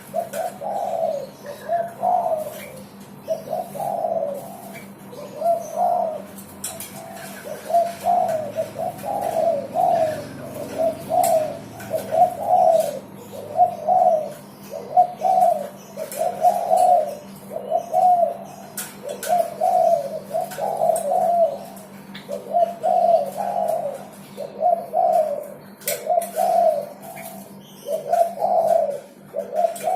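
A derkuku dove cooing repeatedly, a steady run of low coos about one a second. A steady low hum runs underneath.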